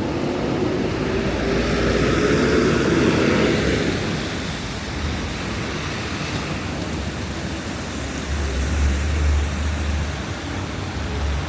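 Street traffic on a wet city street: a motor vehicle passes in the first few seconds, its engine note rising as the noise swells and fades, then a deep low rumble comes in about eight seconds in.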